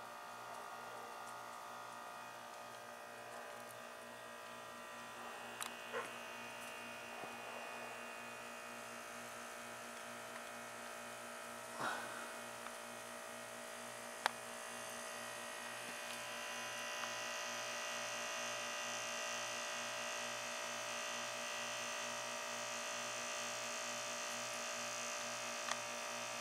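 A steady electrical buzz with a low pulse that repeats at an even rate, and a few faint clicks. A hiss grows louder about two-thirds of the way through.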